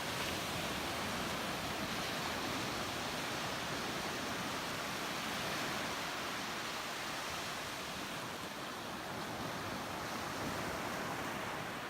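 Ocean surf washing continuously, a steady even rush with no distinct breaking waves standing out.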